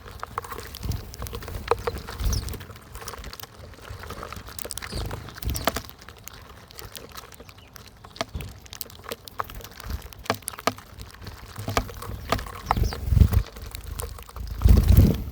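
Small wild birds at a seed feeder: a busy scatter of sharp pecking and seed-cracking clicks with a few short, high chirps. A couple of louder low fluttering rushes from wings come near the end.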